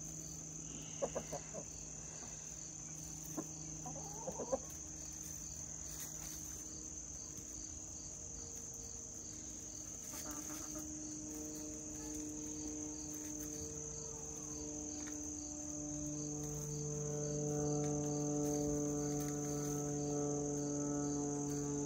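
A few short clucks from backyard hens early on, over a steady high chirr of insects. From about halfway a low, multi-tone drone of a propeller plane builds and grows louder toward the end.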